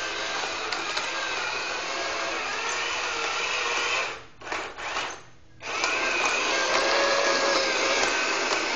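Small electric motors of a model tank's Tamiya twin-motor gearbox whining and whirring steadily. They cut out twice in quick succession around the middle, then run again.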